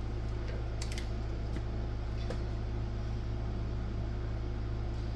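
A steady low electrical hum, with a few light clicks from tools being handled: a pair about a second in, then single ones.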